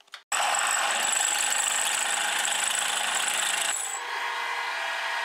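Quantum bench drill-milling machine drilling an 8 mm hole through steel flat bar: the motor runs with a high whine while the bit cuts, starting suddenly about a third of a second in. Near four seconds the cutting noise drops away and the spindle runs on more quietly.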